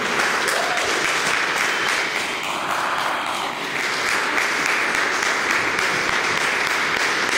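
A small crowd of spectators applauding, a steady patter of many hands clapping.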